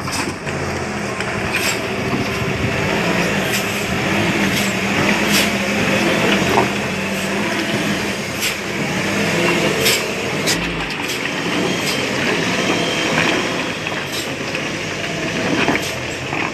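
Heavy tanker truck's diesel engine running steadily under load as it crawls over rough rocky ground, with scattered sharp knocks and clanks.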